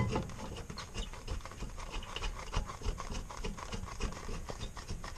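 Brake caliper mounting bolt being run in with a hand ratchet: a sharp knock at the start, then quick, irregular clicking and metal rubbing as the bolt threads in.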